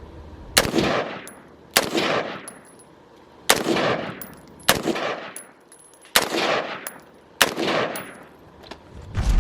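Six single shots from a semi-automatic 5.56 NATO AR-15 (Palmetto State Armory M4 build), fired one at a time about a second to a second and a half apart, each crack trailing off in a short echo.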